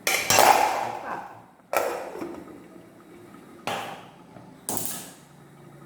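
Four sudden knocks or clatters, each dying away within about a second, with a faint steady hum between them.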